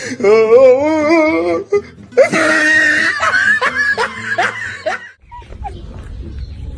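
A person laughing hard: a high, wavering laugh, then loud breathy laughter, cut off sharply about five seconds in, leaving only a low hum.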